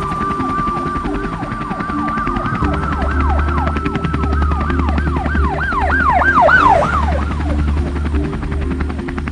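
Emergency-vehicle siren sound effect: it holds a steady tone, then wails in quick up-and-down sweeps that grow louder about six to seven seconds in before fading. It plays over background music with a repeating chord pattern and a steady bass.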